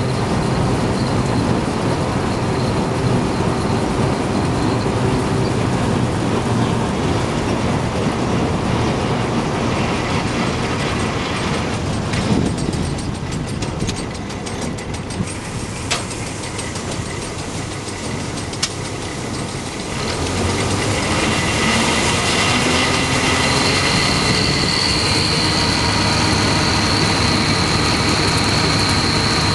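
Trailed John Deere 360 combine harvester running while threshing: a steady mechanical clatter and rumble from its drives and augers, over the hum of the pulling tractor's engine. It eases off for a while in the middle, with a few sharp clicks, then grows louder again. A high steady whine joins in for the last few seconds.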